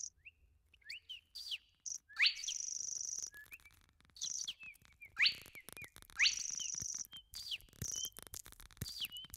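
Birds chirping: quick upward-sweeping whistles scattered through, mixed with short, steady high trills that come and go every second or two.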